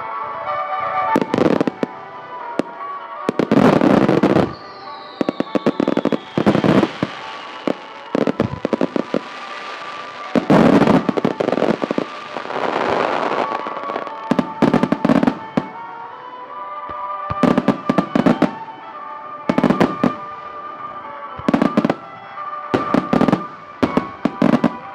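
Aerial fireworks bursting again and again, with single loud bangs and clusters of rapid crackles, over background music played at the venue. A falling whistle sounds about five seconds in.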